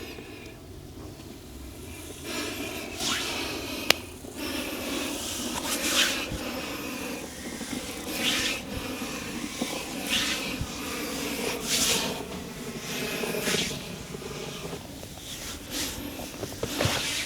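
Hands rubbing and sliding over skin in repeated massage strokes, each stroke swelling and fading about every one and a half to two seconds, with a single sharp click about four seconds in.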